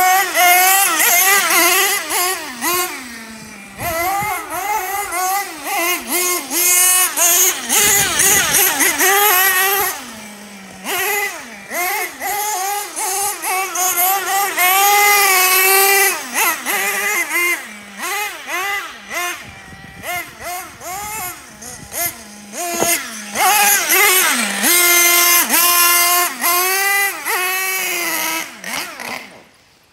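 Small nitro engine of a Team Associated MGT 4.6 RC monster truck revving hard and dropping back again and again as the throttle is blipped on and off, its high buzzing pitch rising and falling constantly. The sound cuts off abruptly near the end.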